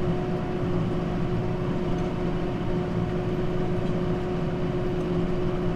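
Kubota tractor engine running steadily with a constant hum, heard from inside the cab as it works in the hay field.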